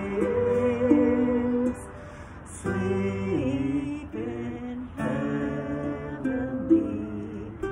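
Folk duo performance: sung vocals over a strummed acoustic guitar and ukulele. The music drops in level briefly about two seconds in, then picks up again.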